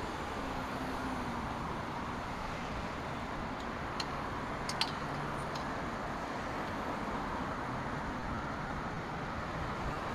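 Steady city street traffic noise from cars passing through an intersection, with a few brief sharp clicks about four to five seconds in.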